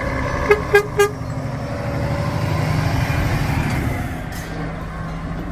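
A horn sounds three quick short toots about half a second in. Then a car-transporter truck's engine runs with a low rumble as the truck drives past, growing louder in the middle and easing off near the end.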